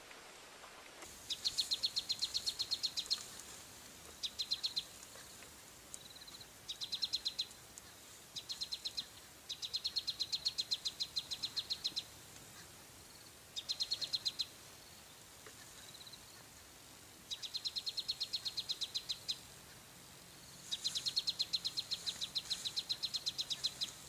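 Insect chirping in rapid, evenly spaced pulse trains of about ten pulses a second, at one high pitch, in repeated bouts of half a second to a couple of seconds with short gaps, over a faint steady outdoor hiss.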